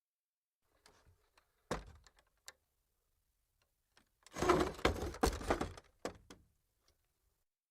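Wooden chair being moved: a single knock about two seconds in, then a second and a half of clicking, creaking scrape, and a short scrape just after.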